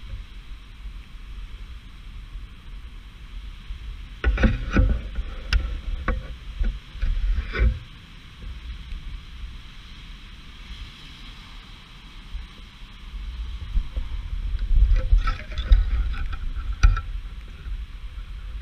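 Hailstones and rain pelting pavement and parked cars, a steady hiss. Gusts of wind buffet the microphone with low rumbles and some clicks about four seconds in, again near eight seconds, and strongest from about fourteen to seventeen seconds.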